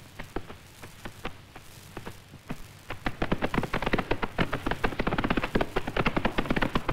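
Horses' hooves: scattered hoof clops, then from about three seconds in a rapid, dense, louder clatter of several hooves at a gallop.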